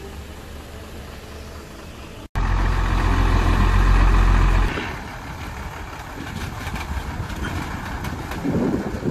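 Vehicle engine and road noise while driving, with a steady low hum. About two seconds in, the sound cuts abruptly to a louder low rumble lasting about two seconds, then settles back to steadier running noise.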